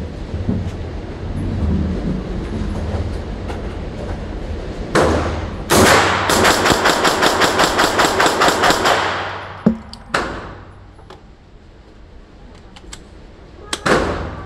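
AR9 pistol, a 9mm AR-pattern gun fitted with a muzzle brake, firing: a single shot about five seconds in, then a fast string of about fifteen shots at roughly five a second, then one more shot. The reports echo in an indoor range.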